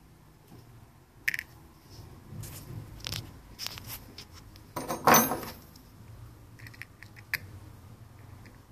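Scattered clicks and scrapes from handling a cast-aluminium VW rear-axle strut mount and metal tools on a bench, with one louder rattling clatter about five seconds in.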